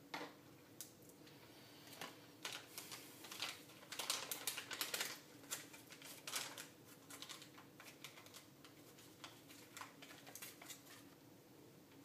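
Hands handling a small clear plastic bag and parts on a workbench: irregular clicks, taps and plastic crinkling, busiest between about four and six seconds in.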